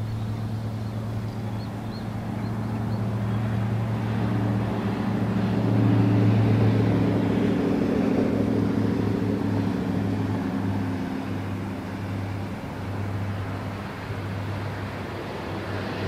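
An engine running with a low hum of steady pitch, swelling about six seconds in and then easing off.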